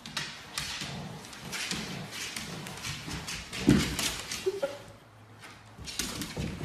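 Golden retriever puppies scuffling in a tug-of-war over a fabric cover: paws scrabbling on a wooden parquet floor and cloth rustling, in irregular bursts. One louder, lower sound stands out a little over halfway through.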